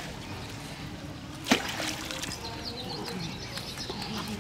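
A single sharp splash about a second and a half in as a baited fishing hook and line drop into the pond, followed by small birds chirping.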